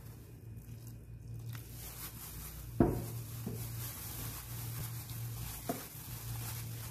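Plastic-gloved hand mixing wheat flour and water in a glass bowl: rough rubbing and crinkling, with a sharp knock about three seconds in and a lighter one about a second before the end, over a steady low hum.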